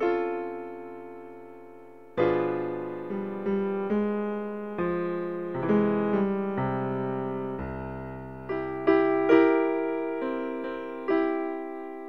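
Slow solo piano music: soft chords and single notes, each struck and left to ring and fade.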